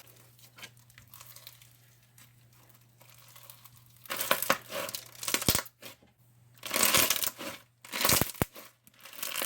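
Crunchy slushy slime being squeezed and worked by hand, giving bursts of crackling crunch: quiet for the first few seconds, then several short bursts in the second half.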